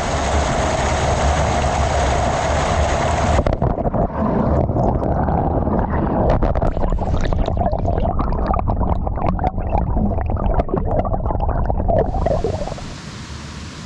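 Rushing mountain stream water with heavy low rumbling and a muffled run of knocks and clicks from about three and a half seconds in, which fits the recorder being handled or carried along the stream. Near the end it settles to a quieter, steady rush.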